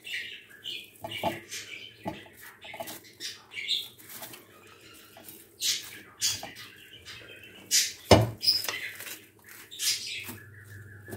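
Plastic stretch film crinkling and rustling, with soft scraping and tapping of a spatula and spoon against a mould, as a thick whipped-cream parfait mixture is pressed and spread into it. A single heavier knock comes about eight seconds in.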